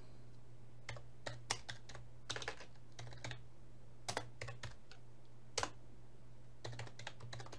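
Computer keyboard being typed on: single keystrokes and short irregular runs of taps with pauses between them, over a steady low hum.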